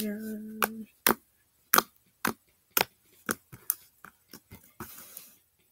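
Sharp clicks and taps, roughly two a second, from hands handling pieces of slime and small plastic containers. A short held vocal tone opens it.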